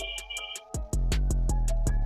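Background music with a steady beat: quick, evenly spaced ticks over deep bass notes. It thins out briefly about half a second in, then comes back in with a heavy low hit.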